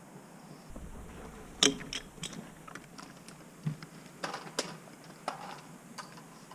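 Irregular light clicks and knocks, about nine in all and unevenly spaced, the sharpest about one and a half seconds in, with a duller knock near the middle.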